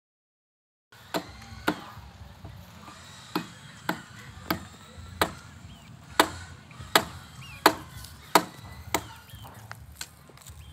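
Repeated chopping with a blade: about eleven sharp strikes roughly two-thirds of a second apart, starting about a second in, the last one weaker. Faint bird chirps sound in the background.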